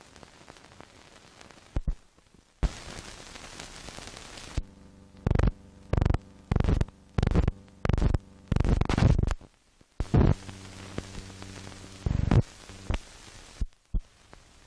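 Old optical film soundtrack running over blank leader: a steady hiss with a low hum, broken by about a dozen loud crackling, buzzing pops, most of them between about five and ten seconds in.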